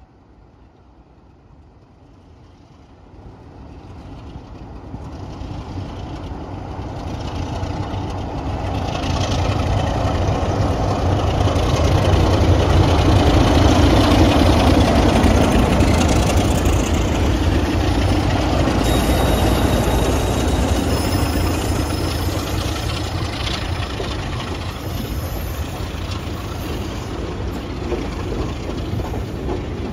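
Two Class 33 diesel locomotives with Sulzer eight-cylinder engines pulling a train away under power. The sound builds over about ten seconds as they draw near and pass, then carries on as the coaches roll by.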